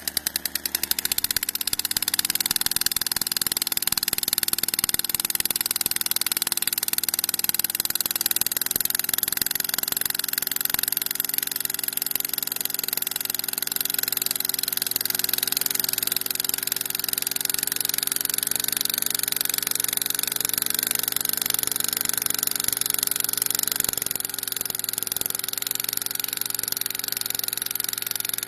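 Small petrol engine of a portable drilling rig running steadily at high throttle while its drill rod bores into the soil. The engine note eases off slightly about twenty-four seconds in.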